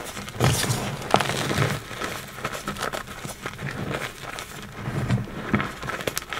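Reformed gym chalk being crushed and crumbled by gloved hands in a bed of chalk powder: irregular crunchy, gritty crumbling.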